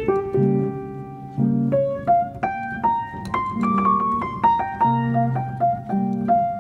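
Background piano music: a melody of single notes over lower chords.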